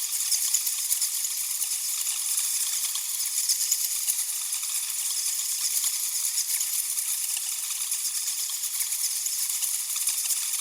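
Many bats chittering together: a dense, unbroken mass of rapid high squeaks and clicks with no low sounds under it.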